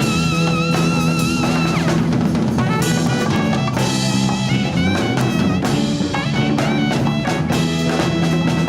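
Latin fusion band playing: a high held note with a wide vibrato slides away about a second and a half in, and the drum kit then takes over with busy snare and bass-drum fills under guitar and bass.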